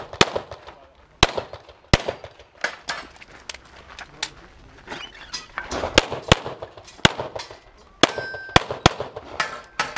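A string of pistol shots fired about one to two a second with uneven gaps, some followed by the metallic clang of a steel target ringing as it is hit.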